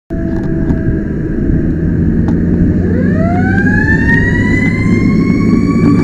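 Fire rescue truck's siren winding up about three seconds in, its pitch climbing steeply and then levelling off into a steady high wail. It is heard from inside the cab over the truck's loud engine and road rumble.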